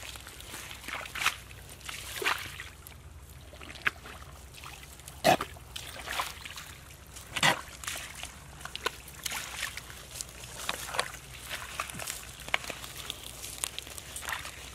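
Bare feet squelching and splashing through soft wet mud and shallow puddles, in irregular steps, with two louder splashes about five and seven and a half seconds in.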